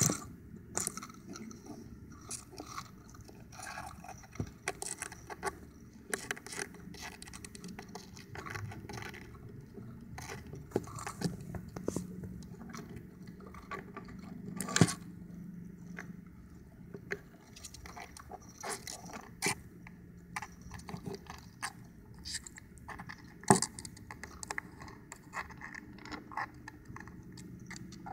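Ecuadorian land hermit crab handling a new shell during a shell change: irregular clicks and scrapes of its legs and claws on shell and sand. A couple of louder knocks stand out, one about halfway through and another a little later.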